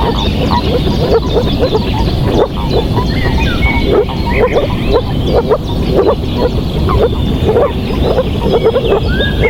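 A chorus of many frogs croaking at once: short calls overlapping densely without a break, with higher, rising chirps above them.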